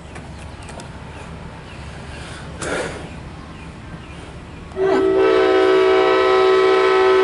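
Locomotive air horn sounding one long chord of several notes, starting about two-thirds of the way in and held steady.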